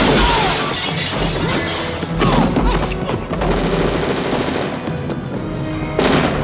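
Film action soundtrack: loud booms and crashes over music, with sudden bursts at the start, about two seconds in and near the end.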